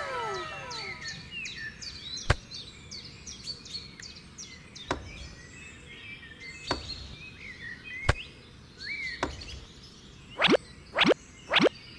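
Small birds chirping and tweeting, with a cat's falling meow trailing off at the start. Four sharp single knocks come a couple of seconds apart, and near the end a quick run of falling zips, about two a second.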